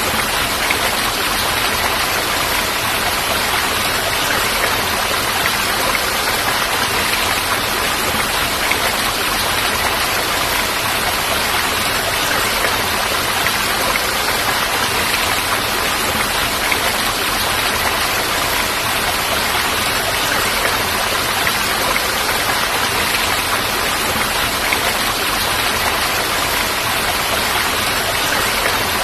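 Falling water rushing in a steady, even wash.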